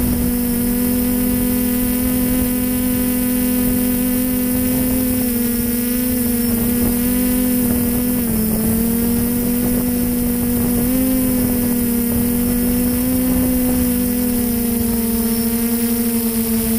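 Motor and propeller of an FPV model plane heard from its onboard camera, a steady drone at cruise throttle that dips briefly in pitch about eight seconds in and rises a little some three seconds later, over a hiss of wind.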